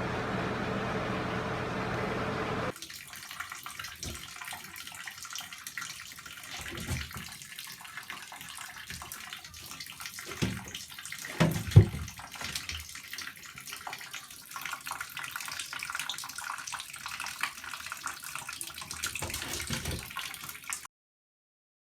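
Water running and splashing, with irregular knocks and one louder thump near the middle. A steady hum plays for the first few seconds and cuts off abruptly.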